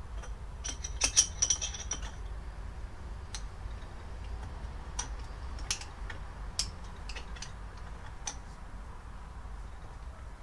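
Metallic clicks and ticks from a spanner tightening the cap of a motorcycle fork leg onto its damper cartridge: a short jingly cluster about a second in, then single ticks every second or two.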